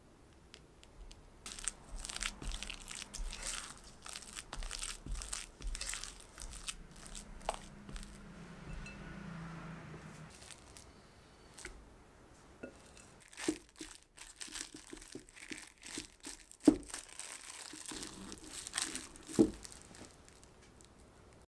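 Silicone spatula scraping and folding thick almond cream batter against a glass mixing bowl, in irregular sticky strokes. A few sharp taps and knocks follow in the second half.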